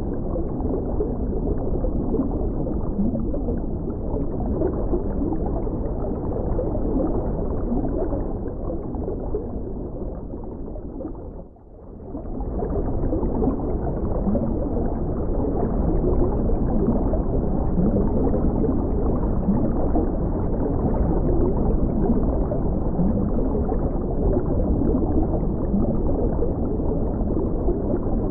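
Underwater ambience of steady, muffled bubbling and rumbling water. It fades briefly to near quiet about eleven and a half seconds in, then swells back.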